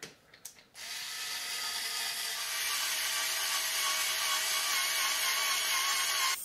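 Workzone cordless screwdriver motor driving a countersink drill bit into wood. After a few clicks, the motor starts under a second in and runs with a steady whine, drilling slowly because the screwdriver lacks a drill's speed. The sound cuts off near the end.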